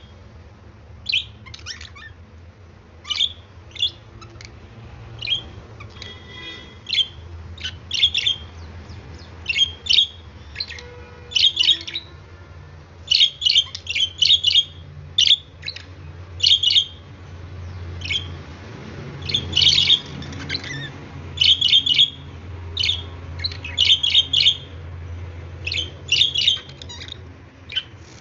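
Pet budgerigars chirping and squawking in short, sharp clusters every second or two, over a low steady hum.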